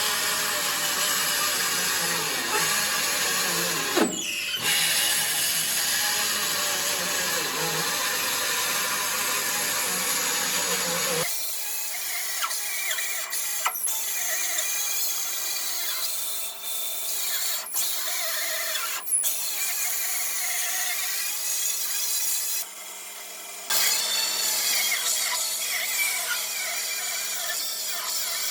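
Power tool running in a workshop, with a few short knocks; about eleven seconds in the sound changes abruptly to a thinner, higher one.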